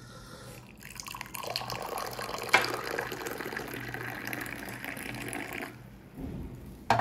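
Tea poured in a thin stream from a metal teapot into a glass, splashing as it fills and raises a head of foam. The pour starts about a second in, has one sudden louder moment a little later, and stops near the end.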